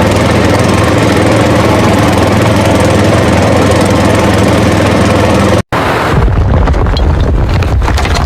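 A motor running with a steady drone, cut off abruptly a little over halfway through and followed by a lower rumble with scattered clicks and knocks.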